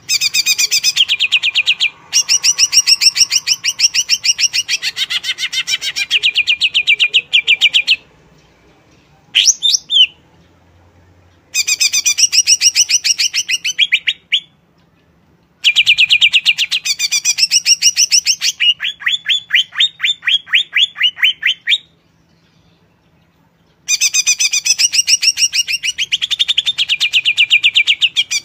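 Greater green leafbird (cucak ijo) singing in long, loud bouts of rapid repeated high notes, broken by short pauses, with a brief slurred call about ten seconds in.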